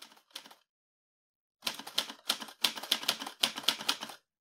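Rapid typing, a dense run of sharp key clacks several a second, starting about a second and a half in after a few faint clicks at the very start.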